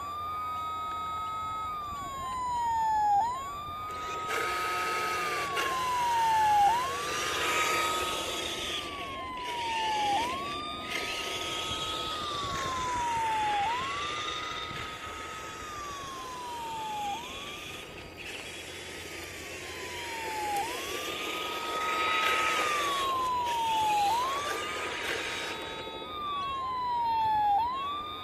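Fire truck siren from an RC model Mercedes-Benz Antos fire truck, a slow two-tone wail that rises, holds the high note, then slides down, repeating about every three and a half seconds. A louder rushing, whirring noise comes and goes over it several times.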